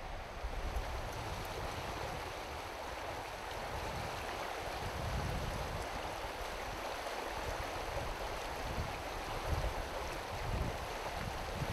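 Shallow, fast-flowing river water rushing steadily over stones, with wind gusting on the microphone as a low rumble that comes and goes.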